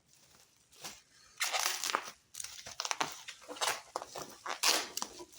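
Foam packing peanuts rustling and crunching in repeated bursts as hands dig through them in a shipping box.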